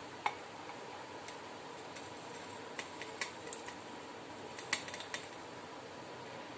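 Light clinks and taps of a steel plate against a steel mixer-grinder jar as spices and chopped mint are scraped and tipped in, a few scattered around the middle and a cluster near the end, over a faint steady hiss.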